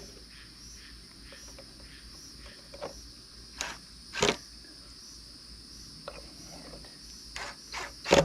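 Steady high insect chorus, with a handful of short rustles and knocks as a bird's nest is pushed and worked into a birdhouse by hand. The loudest knock comes about four seconds in, and a quick cluster of three comes near the end.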